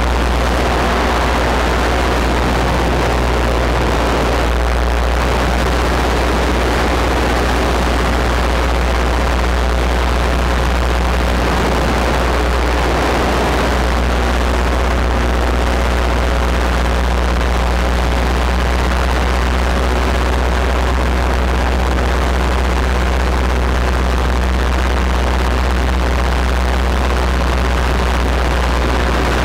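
Paramotor engine and propeller running at steady power, a constant low drone with wind rushing over the microphone.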